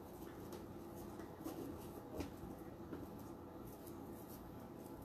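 Faint, intermittent rustling and crinkling of poly burlap mesh being folded and handled by hand.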